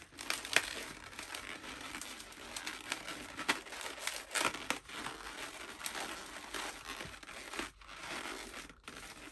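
Inflated latex twisting balloons rubbing against each other under the hands as a ball of balloon bubbles is squeezed and pressed into shape: an irregular run of short rubbing noises.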